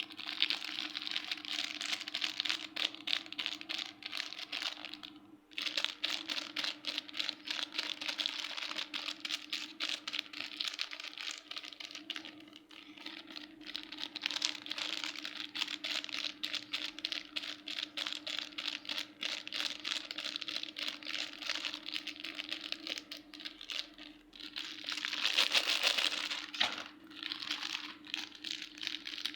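Hands squishing and pressing slime, making a dense, continuous crackle of tiny clicks and pops, with brief pauses and a louder burst a little before the end. A faint steady hum runs underneath.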